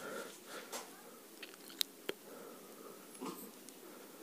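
Faint clicks and taps of hand tools and engine parts being handled on a workbench, with two sharp clicks close together about two seconds in.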